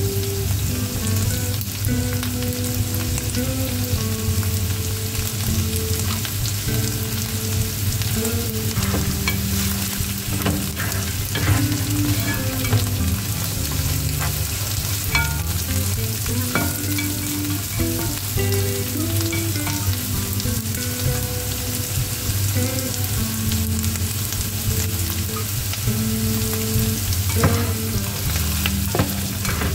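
Minced meat, onions and yellow split peas sizzling as they fry in oil in a nonstick pan, with a spatula stirring and scraping through them, making scattered clicks against the pan.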